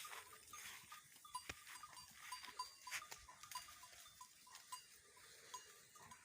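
Goats bleating faintly, over a near-silent background with a faint tick repeating about three times a second.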